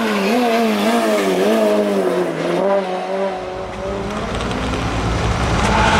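Rallycross race car engine revving, its pitch rising and falling repeatedly before fading about three seconds in. A low engine rumble follows, with another engine note coming in near the end.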